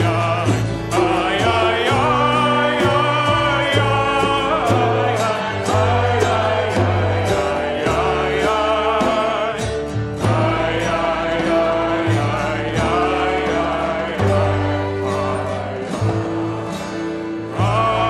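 A congregation and cantor singing a Hebrew liturgical song together, backed by acoustic guitar, violin, upright bass and percussion keeping a steady beat.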